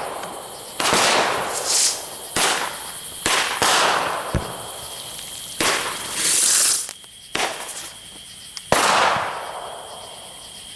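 A string of about ten sharp outdoor bangs, each echoing away over a second or so and coming at uneven intervals, over steady cricket chirping.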